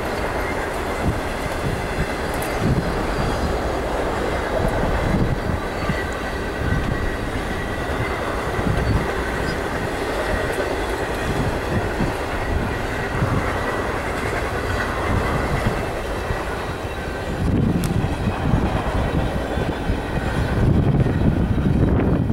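CSX double-stack intermodal train's well cars rolling past, with a steady noise of steel wheels running on the rails.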